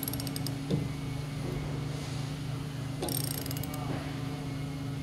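Ratchet handle on a door twist-test rig clicking in two quick runs, one at the start and one about three seconds in, as it is cranked to raise the load. A single knock comes just under a second in, over a steady low hum.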